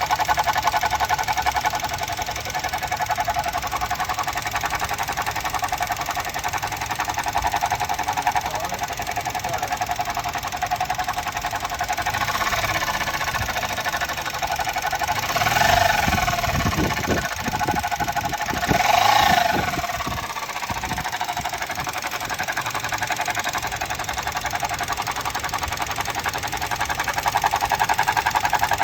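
Suzuki Jimny engine running with a fast, even rattling noise from the back left of the engine, a new intermittent fault whose cause the owner doesn't know. The noise swells twice in the middle.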